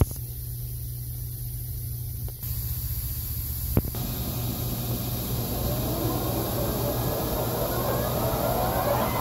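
Metal lathe starting up with a welded U-joint yoke fixture in its chuck: a steady machine hum with a few sharp clicks, then, from about four seconds in, a whine that rises in pitch as the spindle comes up to speed.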